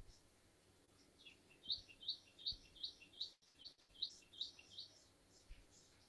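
Faint bird chirping: a run of quick, high chirps repeating about three times a second for some four seconds, with a few faint low thumps.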